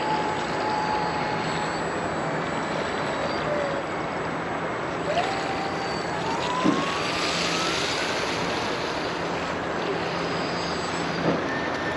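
Brushless electric motor and jet pump of a 3D-printed RC jetboat running, a thin whine whose pitch climbs and drops several times with the throttle, over a steady hiss of wind.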